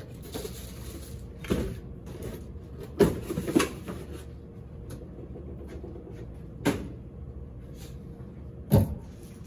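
A handful of sharp knocks and clunks, about five, spread through the stretch, with the loudest a second before the end, over a steady background hum.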